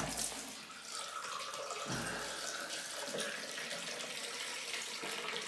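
Water running steadily into a newly refitted cellar floor drain to fill its trap, with a low bump at the start and another about two seconds in.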